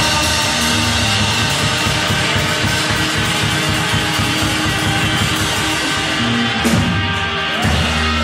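Live rock band playing: electric guitars and bass over fast drumming on a drum kit, with no vocals. Near the end the drumming stops and a low chord is held.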